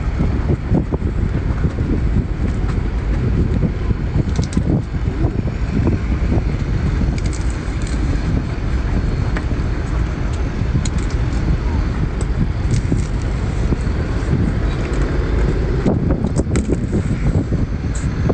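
Wind buffeting the microphone as a steady, gusty low rumble, with a few faint cracks and clicks from crab shell being pulled apart and chewed.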